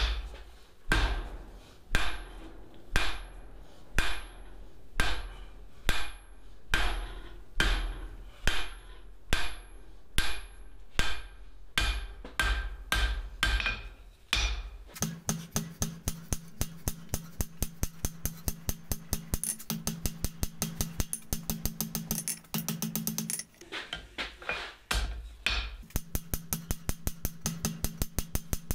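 Hand hammer forging a hot steel bar on an anvil, blows landing about one to two a second. About halfway through, a steady low hum with fast, even ticking takes over, broken by a few more hammer blows.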